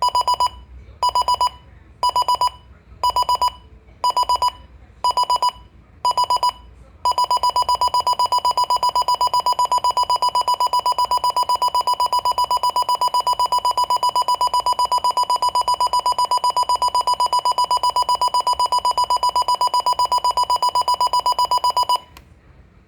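Midland WR-120 weather radio's alarm clock going off: bursts of rapid high beeps about once a second, then about seven seconds in the beeping runs on unbroken, until it stops suddenly near the end.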